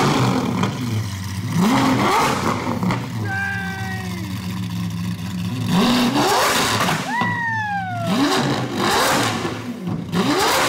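Lamborghini Aventador SV's 6.5-litre V12 running loud and being blipped again and again: each rev climbs quickly in pitch and falls back to a fast idle. These are cold revs just after the engine's first start following the rebuild.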